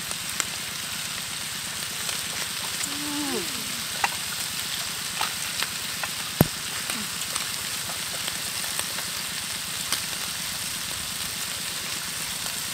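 Beef frying in a large wok, a steady sizzling hiss, with occasional light clicks and one sharp tap about six seconds in.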